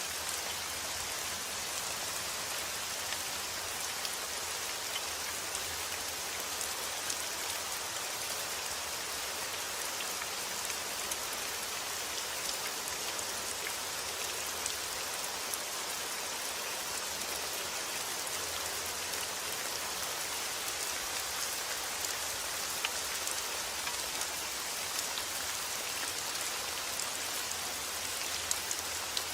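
Steady rainfall, with a dense hiss of drops and scattered individual drop ticks on a surface.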